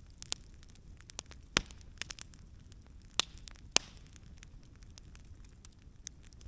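Log campfire crackling, with scattered sharp pops of the burning wood; the loudest pops come about a second and a half in and near four seconds in.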